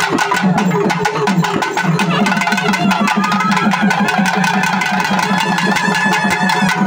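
Music with fast, steady drumming throughout, joined about three seconds in by a wavering higher tone.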